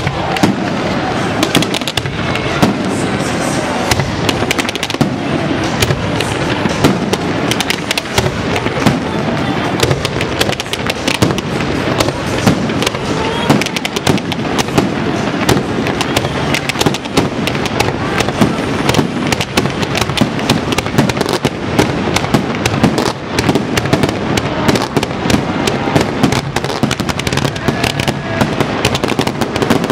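Fireworks display: aerial shells bursting in quick, continuous succession, with many sharp bangs and crackles a second and no let-up.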